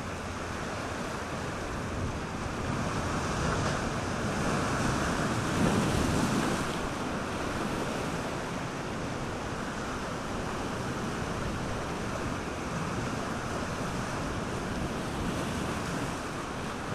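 Sea surf breaking over and around rocks, a steady wash of churning water that swells loudest about four to six seconds in before settling back.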